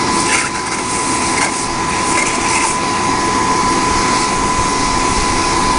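Electric air blower running steadily on the bloomery furnace: a loud, even rushing of air with a constant high whine.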